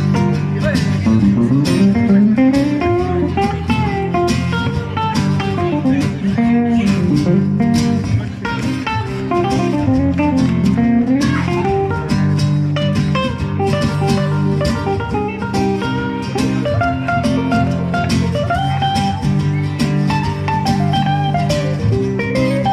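Live duo of acoustic guitar and archtop electric guitar playing an instrumental blues passage: chords underneath a melodic lead line with bent notes.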